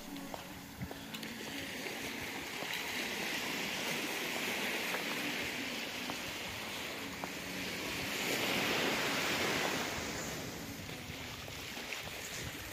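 Small waves washing onto a sandy beach as a steady hiss, swelling about three seconds in and again more strongly around eight to ten seconds.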